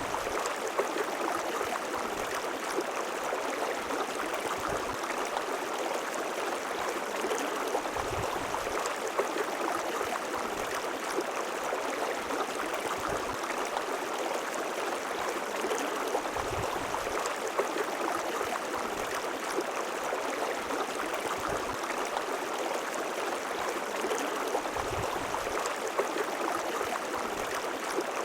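A river's flowing water rushing and gurgling steadily, with occasional soft low thumps.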